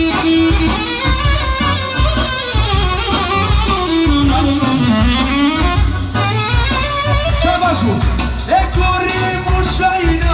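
Live band music: a saxophone plays a melody that slides down in pitch about halfway through and climbs back, over a steady drum beat.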